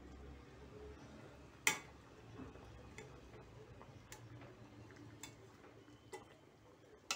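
Metal spatula clicking against the side of a metal kadai while stirring a curry: a handful of scattered light clicks about a second apart, the loudest about a second and a half in.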